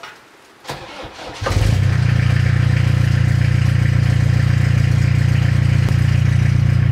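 Iveco Daily van's engine starting about a second and a half in, catching at once, then running at a steady idle through its freshly tack-welded custom exhaust with a new, shorter silencer.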